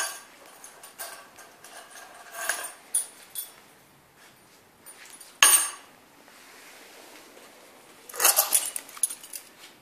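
Bunch of house keys jingling and clinking in a Labrador puppy's mouth as it carries and chews them on paving. There is a single sharp clatter about five and a half seconds in and a burst of jangling near the end.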